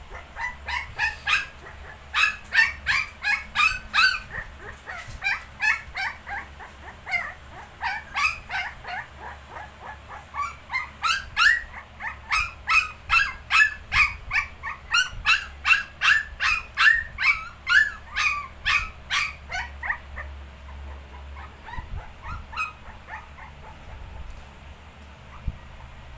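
Young puppies, 19 days old, squeaking and whimpering in short high-pitched cries, several a second, for about twenty seconds. Then only a few scattered cries come near the end.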